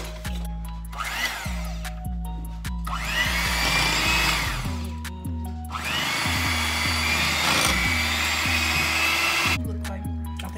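Electric hand mixer beating a creamy mixture in a bowl, run twice: its whine rises as it starts about three seconds in and falls as it stops about two seconds later, then it runs again from about six seconds until near the end. Background music with a steady bass line plays throughout.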